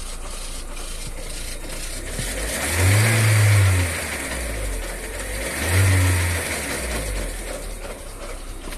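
Lada Vesta NG engine revved twice, each rev lasting about a second and a half, with a whistling noise from the timing belt that grows louder with the revs: the sign of a damaged timing belt.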